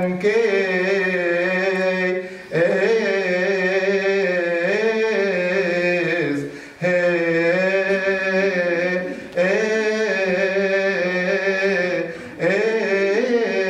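A man chanting the Gospel in the Coptic liturgical style, drawing out the words in long melismatic held notes that waver and ornament. The chant comes in phrases, with a short breath between them every few seconds.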